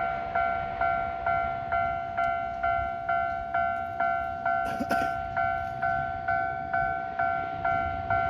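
Japanese level-crossing warning bell ringing: an electronic two-tone ding repeating steadily about two and a half times a second, the signal that the crossing is closed for an approaching train. A brief sharp noise cuts through about five seconds in.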